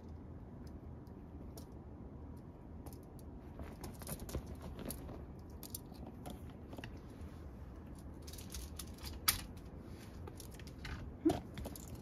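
Cat playing with a feather teaser toy on a cloth bed cover: faint scattered rustling and clicking that starts a few seconds in, with two sharper clicks in the last few seconds.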